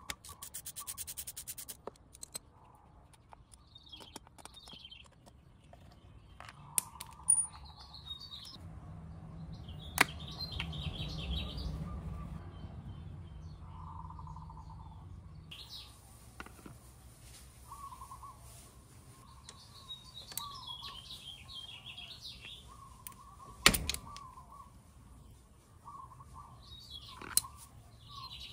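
Birds chirping on and off in the background over quiet hand-tool work. Near the start there is a quick run of clicks as a Phillips screwdriver turns out a chain case cover screw, and later a few sharp metal clinks, the loudest about four-fifths of the way in. A low rumble runs for several seconds in the middle.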